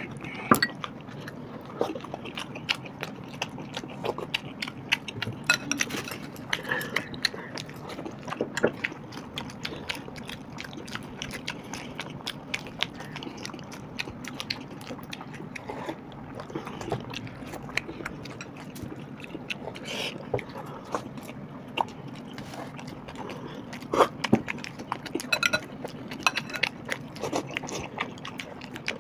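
Two people eating paratha and potato curry by hand: chewing and biting, with many scattered small clicks and taps of fingers and a spoon on bowls, over a steady low hum.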